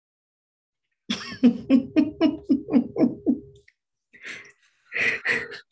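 A woman laughing: a quick run of about nine 'ha' pulses, then a couple of breathier chuckles near the end.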